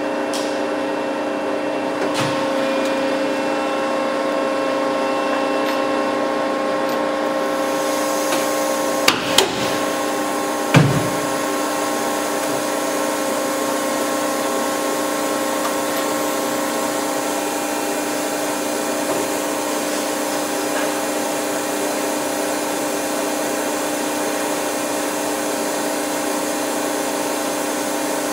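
Seat belt pull-test rig running with a steady machine hum, pulling the passenger seat and belt restraints of a truck sleeper cab under load of over 4500 lb. Three sharp bangs come about nine to eleven seconds in, the last one the loudest, as the loaded seat and belt anchorage give.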